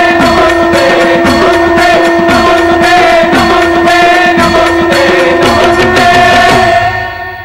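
Devotional music: a steady held drone under a fast, even drum beat. It fades out near the end.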